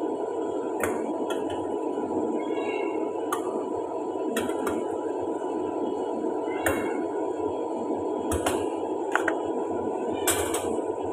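Dishes clinking and knocking as they are set into a wire dish-drying rack: about ten sharp, irregular clinks, with two close pairs near the end, over a steady low rushing noise.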